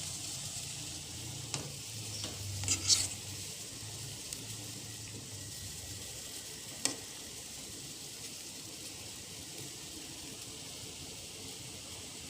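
A pot of spiced herbal drink simmering on a stove turned down low: a steady hiss, with a few sharp clicks, the loudest about three seconds in.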